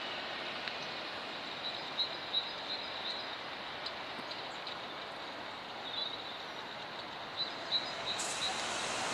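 Steady outdoor background hiss beside a railway line, with a small bird chirping in short high notes several times. Near the end the hiss gets suddenly brighter.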